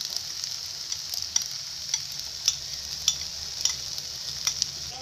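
Fried rice sizzling in a hot pan as it is stir-fried, with sharp clicks of the stirring utensil against the pan about twice a second over a steady high hiss.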